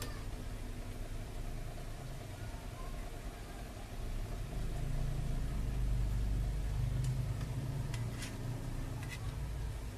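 Low steady motor rumble, like an engine idling, swelling louder about halfway through and easing again near the end, with a few faint clicks.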